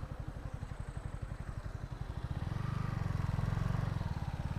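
Yamaha MT-15's 155 cc single-cylinder engine running at low revs with a steady pulsing exhaust beat. It picks up and grows a little louder about halfway through, then eases off near the end.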